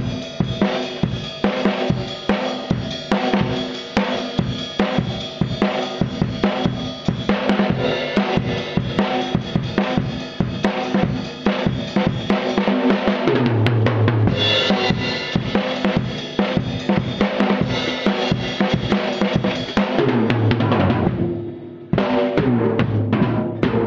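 Drum kit played in a fast solo: rapid snare, bass drum and cymbal strokes. About halfway through it moves into deeper, rolling drum tones, thins out briefly near the end, then the fast strokes come back.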